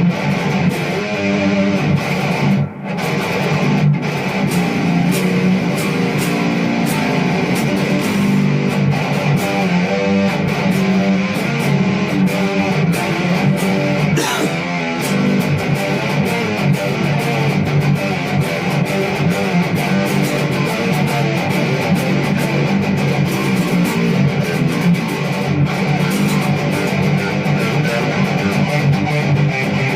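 Continuous guitar-driven music, with electric guitar at the front.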